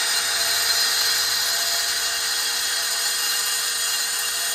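Cordless drill running steadily with its bit grinding against a rusty cast-iron cylinder head: a constant motor whine over a grinding noise. A drill stands in here for the die grinder that is the proper tool for the job.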